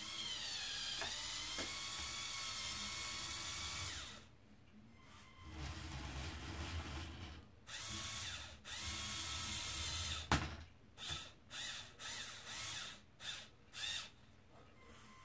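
Small electric motors and plastic gearing of a Lego Technic RC hooklift truck whining as the hook arm tips the container back and lowers it to the floor. The motor runs for about four seconds, pauses, then runs again, ending in a sharp click about ten seconds in. It finishes with several short bursts as the arm is nudged into place.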